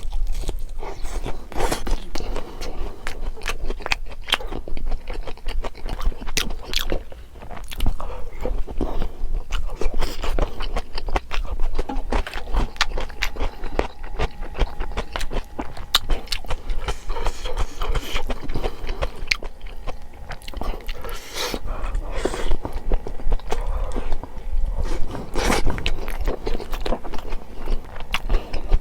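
Close-miked eating: a person chewing and biting food, with crunchy, wet mouth sounds and sharp clicks throughout.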